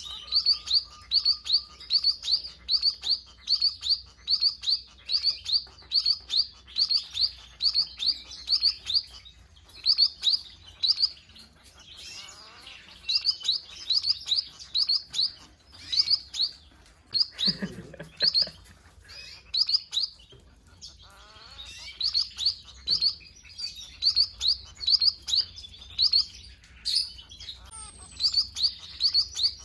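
Munia (emprit) calls: short high chirps repeated about three times a second in runs with brief pauses, the call used as a lure for these birds. A brief low knock near the middle.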